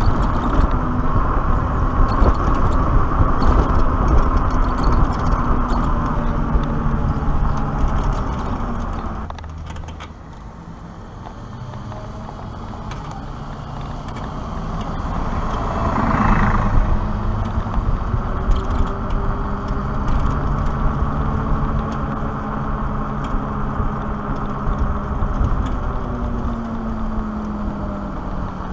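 Wind rush and tyre noise from a Black Tea Bonfire X electric motorcycle riding at around 30 km/h, under a faint electric motor whine whose pitch drifts up and down with speed. The noise eases for a couple of seconds about ten seconds in, then a city bus swells past in the other lane about sixteen seconds in.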